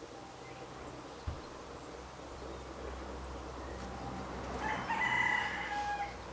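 A bird calling once, a drawn-out call of about a second and a half near the end, over a faint steady outdoor background, with a short low thump about a second in.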